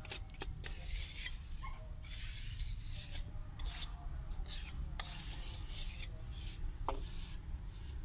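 A hand rubbing grit around the inside of a mortar (kundi) mould, a gritty scraping in short, uneven strokes, with a few sharp clicks between them.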